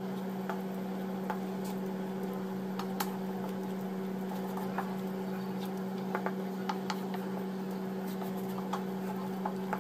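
Thick onion-tomato masala gravy coming to the boil in a pan, with small bubbles popping irregularly over a steady low hum.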